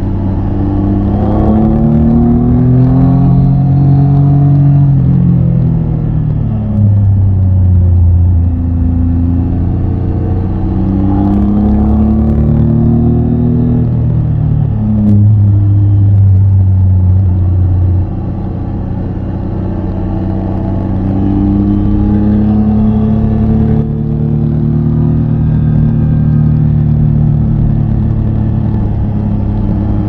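Triumph Tiger 800 XCA's three-cylinder engine under way, its pitch rising and falling again and again as it accelerates and eases off. Its loudness jumps up or drops off suddenly several times as the throttle opens and closes.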